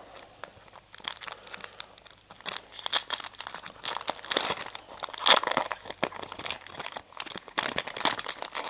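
Shiny foil wrapper of a 2011 Bowman Draft baseball card pack being torn open and crinkled by hand: a dense run of irregular crackles starting about a second in.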